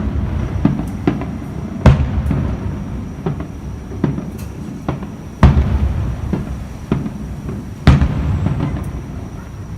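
Aerial fireworks bursting: three big booms a little over two seconds apart, about two, five and a half and eight seconds in, with smaller bangs between them, each followed by a low rumbling echo.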